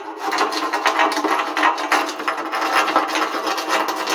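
Chipping hammer knocking and scraping at weld spots on galvanized steel C-channel, chipping off welding slag, in quick, irregular strokes.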